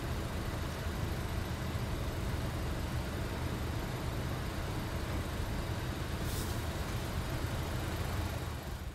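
Car engine idling, a steady low rumble heard from inside the car's cabin.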